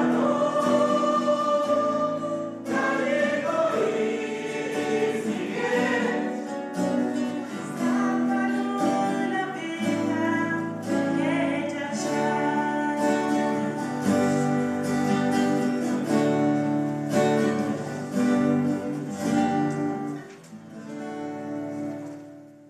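Mixed choir of men's and women's voices singing a devotional song in long held chords, dying away near the end.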